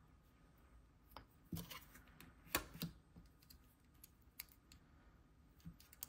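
Scattered light clicks and taps of nail-stamping tools handled on a table: a nail polish bottle capped and set down, then a clear jelly stamper and a plastic scraper picked up. The two loudest knocks come a little after the midpoint.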